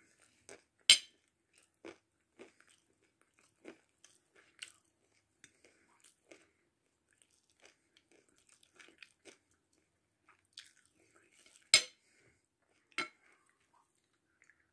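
Close-up chewing of a mouthful of biryani: scattered soft, wet clicks and small crunches. Two much louder, sharp clinks, like a metal spoon striking a dish, come about a second in and again about three seconds before the end, with a smaller clink just after the second.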